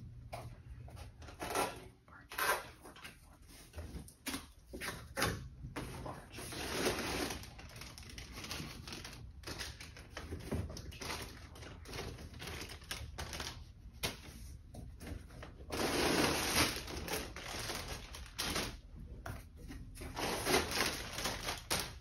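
A tall cardboard box being opened and rummaged in by hand: flaps and packing scraping and rustling, with scattered clicks and knocks and several longer spells of rustling.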